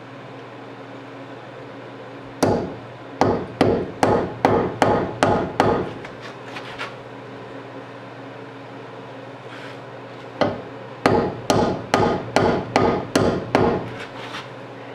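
Hammer blows driving a new brass bushing into a GMC Squarebody door hinge: two runs of about eight sharp strikes each, at roughly two or three a second, with a pause of several seconds between them.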